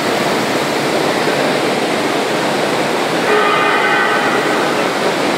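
Steady industrial din of a rolling mill's machinery. About three seconds in, a high ringing tone with several pitches joins for about a second and a half.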